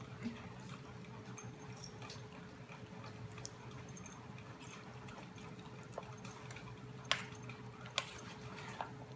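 Formosan mountain dog puppies eating from a stainless steel bowl: many small clicks and wet chewing, with two sharper clinks against the bowl about seven and eight seconds in. A faint steady hum runs underneath.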